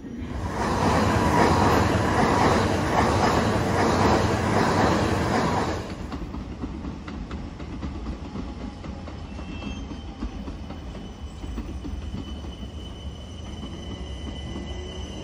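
A train passing close by, a loud rush of wheel and rail noise that drops away suddenly about six seconds in, followed by a lower rumble of rolling stock with a thin, high wheel squeal coming in later.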